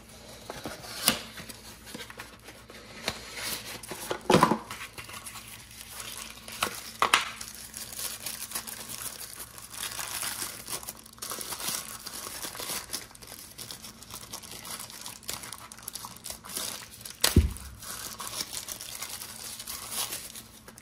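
Crinkling and rustling of the wrapping as a lens cap is unwrapped from its small cardboard box, broken by short clicks and one louder knock late on.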